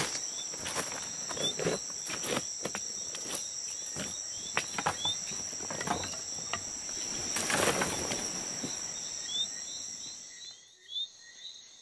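Tropical forest insects keeping up a steady high-pitched drone, with short chirps repeating over it. Scattered clicks and rustles run through it and stop near the end.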